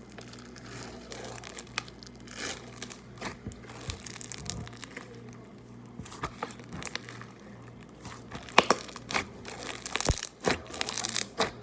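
Stretchy slime being squeezed and stretched by hand, giving irregular crackling clicks and pops that come thicker and louder in the last few seconds.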